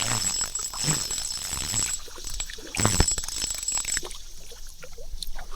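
Water splashing and sloshing as a hooked smallmouth bass thrashes at the surface of a shallow creek while it is landed. Uneven splashes, the biggest about three seconds in.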